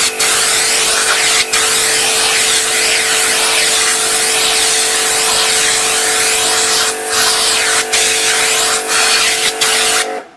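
Pressure washer spraying a jet of water onto a screen-printing mesh, rinsing off the ghost-image remover. A loud hiss of spray runs over the steady hum of the washer's pump motor, with a few brief dips, and it cuts off suddenly near the end.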